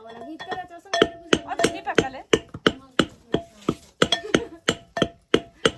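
Black-lentil batter for batuk being beaten by hand in a vessel: regular strikes about three a second, each with a clinking ring, starting about a second in.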